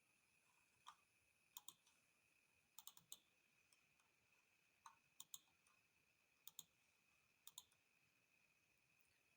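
Near silence, with a dozen or so faint, irregular clicks and a thin steady high tone.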